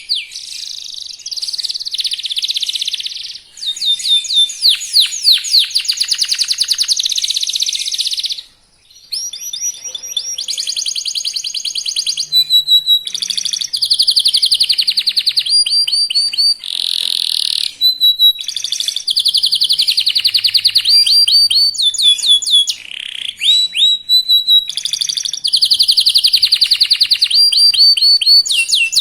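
Young domestic canary singing a fast, continuous song of rapid rolling trills and short whistled notes, breaking off briefly about eight seconds in.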